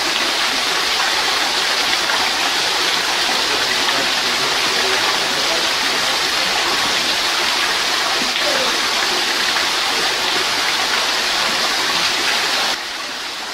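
Steady rushing of running water, even and unbroken, dropping somewhat in level near the end.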